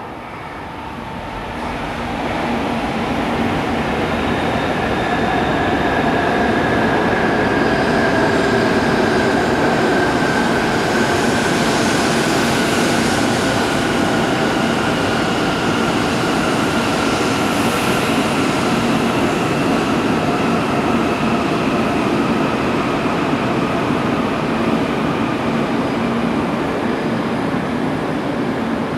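JR East E2 series Shinkansen train running in along the platform as it arrives. A rush of wheels and air builds over the first few seconds, then holds as a steady loud rumble with whining tones that slowly fall in pitch as the train slows.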